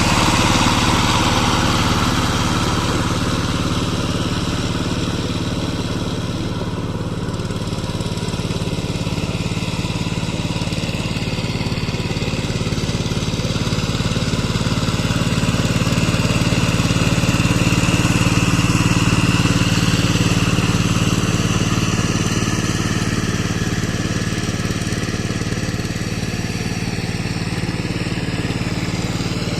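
Power tiller engine running steadily while working a rotavator through mud, swelling slightly in loudness around the middle of the stretch.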